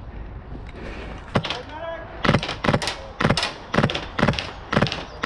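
A steady run of sharp thumps, about two a second, starting a little over two seconds in, with a brief voice just before.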